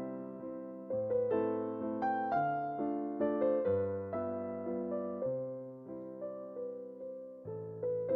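Solo piano music: a light, lilting melody over a regular bass pattern, each note struck and fading.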